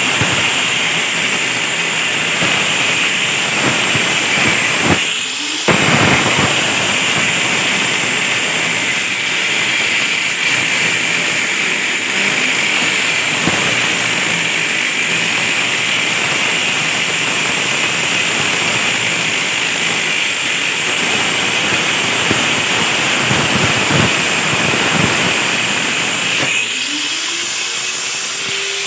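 Handheld electric angle grinder cutting a chase into a brick wall with a cutting disc: a steady, loud grinding hiss over a high motor whine. It dips briefly about five seconds in, and near the end the grinding eases while a rising whine shows the motor speeding up.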